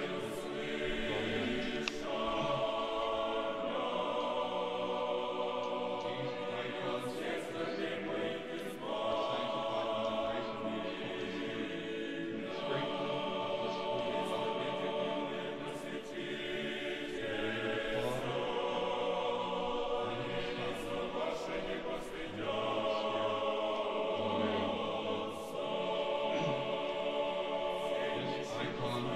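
A choir singing Orthodox liturgical chant a cappella, held chords moving in phrases of a few seconds, with faint clicks now and then.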